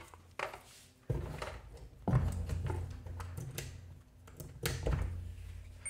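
Handling noise: clicks and knocks of a small plastic dash cam and a charger cable being handled and plugged in. A low rumble of handling runs from about a second in until near the end.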